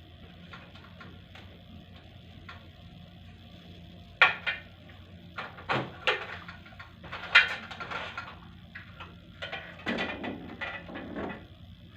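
Irregular knocks and clatters of hard objects being handled, starting about four seconds in and stopping near the end, after a few faint ticks.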